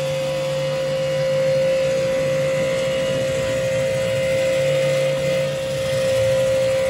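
Sun Joe 3200 electric pressure washer running with a steady, unchanging tone, its water jet hissing from a Ridgid surface cleaner pushed over wet concrete.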